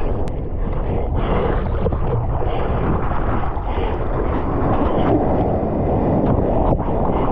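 Foaming surf whitewater rushing and splashing around a bodyboard, with a heavy rumble of wind and water on the microphone and a few short splashes.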